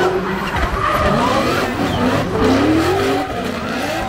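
Two drift cars in a tandem run, their engines revving up and down repeatedly on the throttle while the tyres squeal as they slide sideways.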